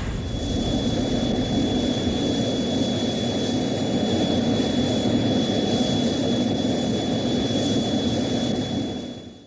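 Ultraman Star's flying sound effect: a steady, jet-like rushing noise with a thin high whine held over it, fading out near the end.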